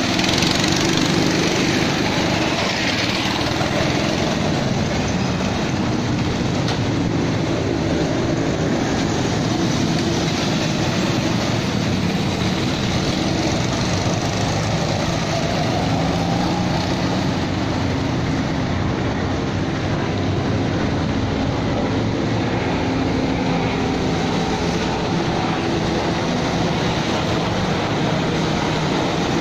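Several go-kart petrol engines running together in a steady drone, their pitch drifting up and down as the karts speed up and slow down around the track.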